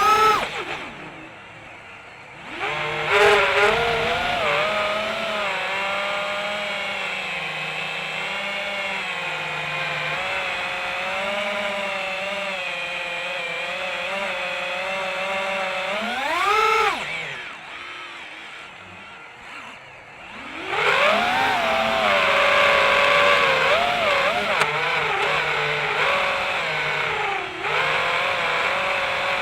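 Motors of a radio-controlled model whining at high speed, pitch rising and falling with the throttle. The whine dies away about a second in and again after a sharp rev-up past halfway, returning each time after a couple of seconds.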